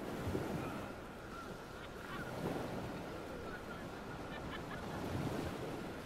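River current rushing and splashing around a swimmer in shallow, fast water, a steady wash, with a few faint short high calls in the background.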